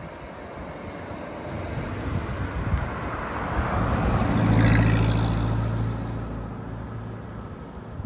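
1933 Auburn 8-101A Boattail Speedster's straight-eight engine as the car drives past. It grows louder to a peak about halfway through as the car passes close by, then fades as it moves away.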